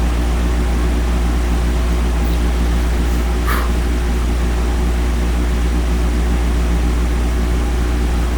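Steady low hum with a constant hiss over it, like a room air conditioner or mains hum. A faint brief tick comes about halfway through.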